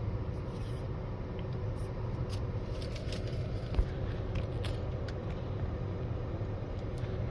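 Light handling noises of a toy and its packaging: scattered small clicks and scrapes, with one short knock a little under four seconds in, over a steady low rumble.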